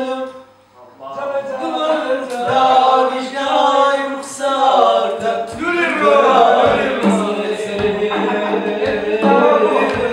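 A man singing into a microphone, amplified through a portable speaker, with a short break near the start before the song carries on.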